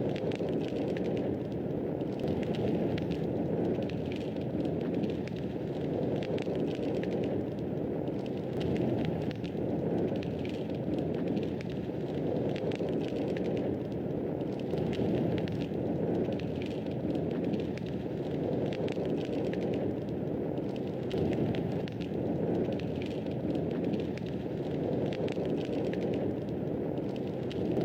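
Wood fire crackling in a fireplace: a steady low rush of burning with many small, sharp crackles and pops scattered throughout.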